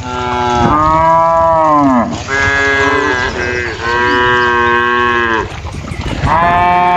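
Cattle mooing: about four long, loud moos in a row, each around a second and a half, several sliding down in pitch at the end, the last still going at the close.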